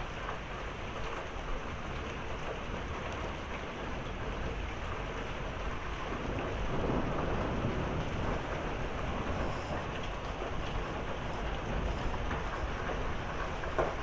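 Heavy rain mixed with small pea-sized hail pattering down as a steady hiss, with scattered small ticks. A low rumble of thunder swells about halfway through.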